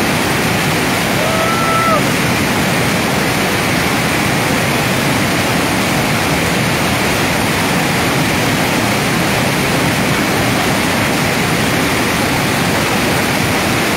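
Steady, loud roar of Sakaika Falls on the Ekereku River, a powerful waterfall heard close up at its brink: a constant rush of falling water with no letup.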